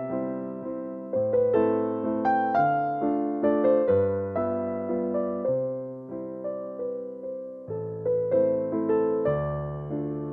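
Background music: a keyboard melody in piano-like struck notes, about two notes a second, over slowly changing bass notes.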